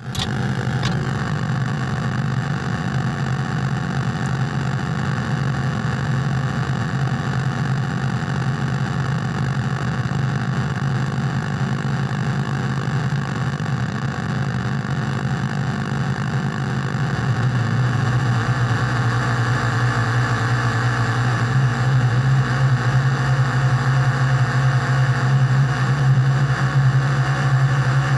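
Industrial noise music: a dense, steady drone with a strong low hum, much like an engine running, that grows louder about two-thirds of the way in.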